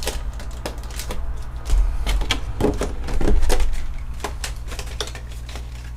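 Clear plastic packaging trays clicking and crackling as they are handled: a quick run of sharp clicks, loudest and busiest in the first four seconds, then thinning out.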